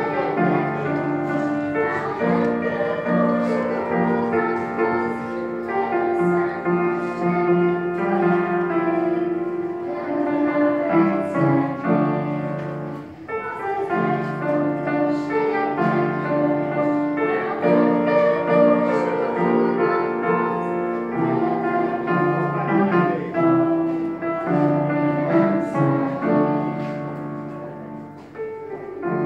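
Live piano music with a small group singing, in sustained phrases, with a brief break about halfway through.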